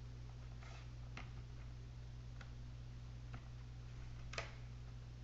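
Scattered light clicks and taps of a laptop motherboard being handled and fitted into its plastic chassis, the loudest about four seconds in, over a steady low hum.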